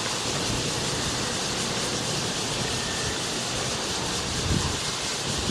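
Steady rushing background noise, with a short low thump about four and a half seconds in.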